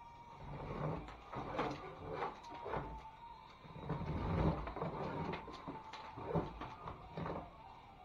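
Metal drywall scraper scraping along a ceiling joint seam while loose, peeling paper tape is torn away by hand, in irregular strokes. The scraping is loudest about halfway through.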